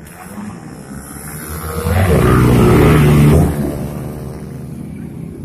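A motorcycle engine passing close by. It grows louder over the first two seconds, is loudest for about a second and a half, then fades as it moves away.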